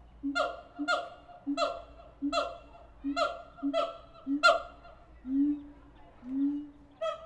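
Siamang calls: a rhythmic series of short low notes, each followed by a loud, higher falling bark, about seven in quick succession, then from about five seconds in only longer, slightly rising low notes.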